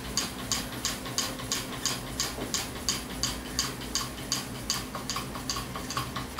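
Homemade soda-can Stirling engine running on a tealight, its wire crank and linkage clicking in a steady rhythm of about four clicks a second.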